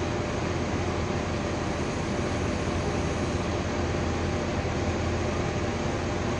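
Diesel engine of a 75-ton mobile crane running at a steady drone while it holds a suspended load.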